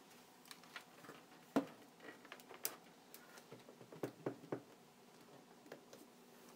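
Scattered light clicks and knocks of a plastic cordless phone base being hung onto screws in a wooden wall block and pressed into place, with the sharpest knock about a second and a half in and a few more around four seconds in.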